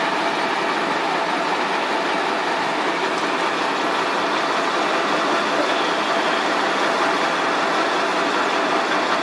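Heavy crane truck's diesel engine running steadily, an even mechanical noise with no change in pace.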